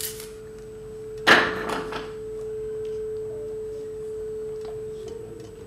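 A single steady pure tone held throughout, with a loud noisy burst about a second in.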